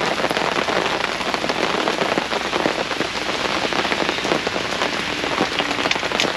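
Heavy rain falling steadily on a fabric canopy overhead, a dense even hiss full of countless small drop ticks.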